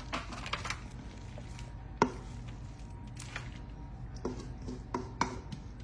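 Wooden spoon scraping and knocking against a mixing bowl as a thick shredded hash brown and cheese mixture is scooped out and drops into a foil baking pan. There is a run of scattered knocks, the sharpest about two seconds in.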